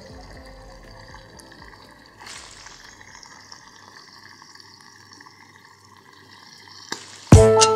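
Chicken livers sizzling faintly in oil in a nonstick frying pan, with a short swell of sizzling about two seconds in. Loud electronic music with a beat cuts in just before the end.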